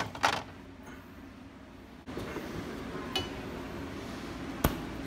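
Stainless steel mixing bowl clinking as it is set down on a glass refrigerator shelf, then the refrigerator door shutting with a single sharp knock near the end. A steady low hum sets in about two seconds in.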